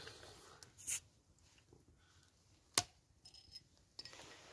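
Hands handling a bottle and small objects: light handling noise, a short hiss about a second in, and one sharp click a little past the middle, the loudest sound.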